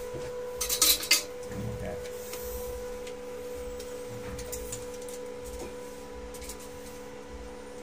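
A quick burst of sharp clicks and rattles about a second in, from a steel tape measure being handled, with a few fainter clicks later, all over a steady hum.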